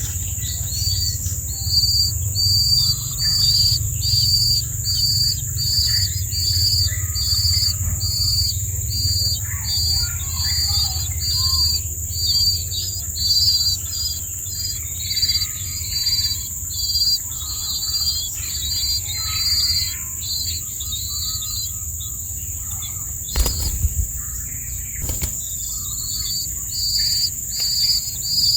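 Insects chirping outdoors: a steady high drone with a rhythmic chirp repeating about once a second, faint bird calls in between, and two sharp clicks near the end.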